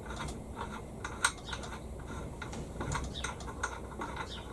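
Light, irregular clicks and taps of plastic and metal parts being handled and fitted together as a two-tier planter with a metal stand and plastic baskets is assembled, with one sharper click about a second in.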